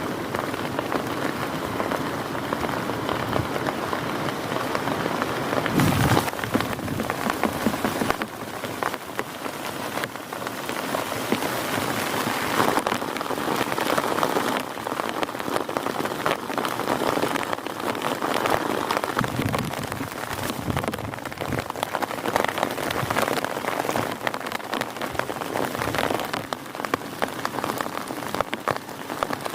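Heavy rain falling steadily, thick with the pattering of individual drops striking a surface, with one brief louder surge about six seconds in.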